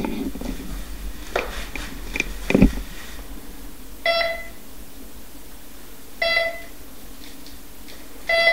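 A few knocks and a thump, then a metal detector beeping three times about two seconds apart, each a short mid-pitched tone, as its coil is swept over a rug: the beeps signal metal (hidden gold) under the coil.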